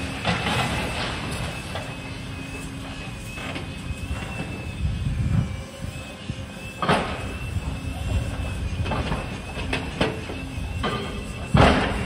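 Demolition excavators' diesel engines running with a steady low rumble and a thin high whine, broken by sharp bangs and clanks of demolition work. The two loudest bangs come about seven seconds in and just before the end.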